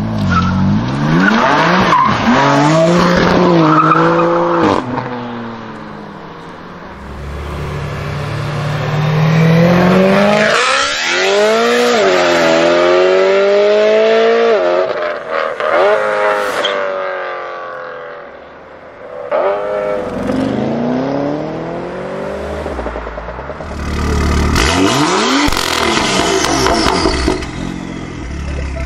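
A run of tuned BMW M cars accelerating hard: a Manhart-tuned M3 F80's twin-turbo straight-six and an M3 E92's V8 on an iPE exhaust, each engine note climbing in pitch and dropping back at each upshift. Several loud separate pulls follow one another.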